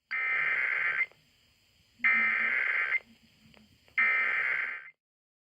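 Emergency Alert System SAME header: three identical bursts of warbling digital data tones, each about a second long with a second's pause between. The data bursts encode the alert, here a Severe Thunderstorm Warning.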